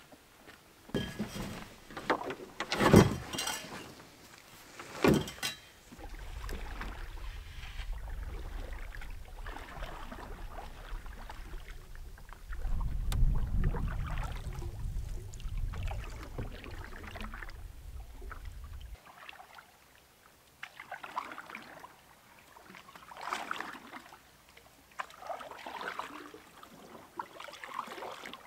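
Canoe paddles dipping and pulling through lake water in repeated splashing strokes. A few sharp knocks and clunks come in the first few seconds, and a low rumble runs through the middle stretch.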